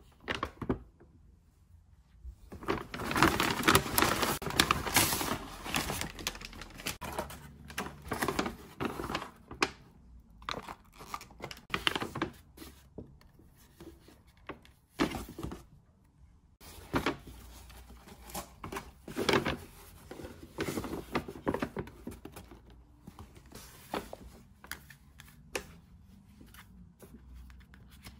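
Handling noise from a brown paper shopping bag and the things taken out of it: paper rustling and crinkling, loudest for a few seconds near the start, then scattered shorter rustles and small knocks and clicks as items are picked up and set down.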